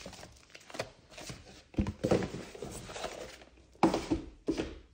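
Handling noise from a Tokyo Marui airsoft pistol: a few separate knocks with rustling in between.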